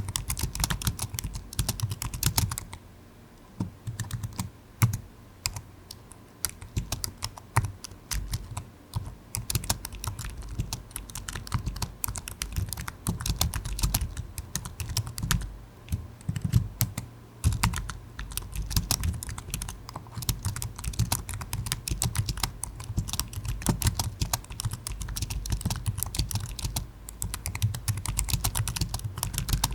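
Typing on a computer keyboard: quick, irregular runs of key clicks with short pauses between them.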